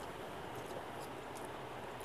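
Faint eating sounds: fingers working rice on a steel plate and chewing, with a few light clicks over a steady background hiss.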